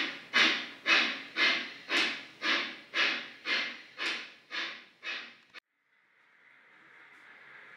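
Model steam locomotive's sound decoder chuffing: even exhaust chuffs about two a second, each a short hissy puff. The chuffing cuts off abruptly a little past halfway, and a faint steady hiss slowly fades up after it.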